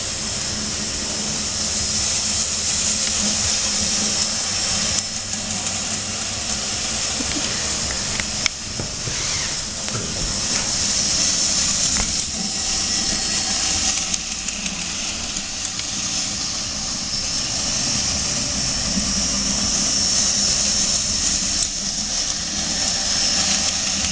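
Model train running on its track: a steady rumble under a strong hiss, with a few light clicks.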